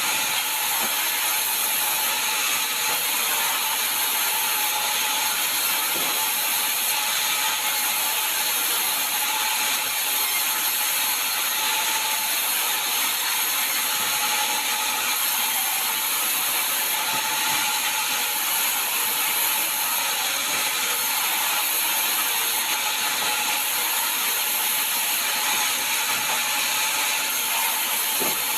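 Sawmill saw running steadily while ripping sengon logs: a continuous, even, high-pitched mechanical rasp with a faint steady whine underneath and no breaks.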